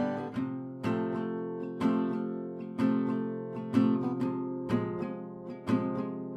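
Background music: acoustic guitar strumming chords, about one strum a second, each ringing on.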